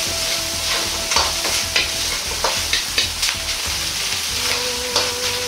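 Ground pork sizzling in oil in an iron wok as a metal ladle stirs and scrapes it, with repeated sharp clinks of the ladle against the wok. The meat is being fried hard until fully browned, its fat rendering out.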